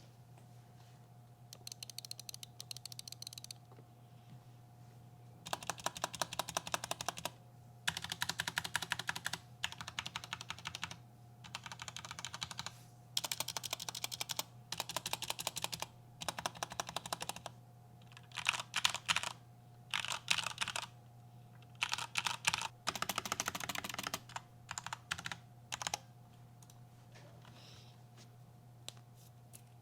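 Mechanical keyboard being typed on in quick bursts of rapid key clicks, separated by short pauses.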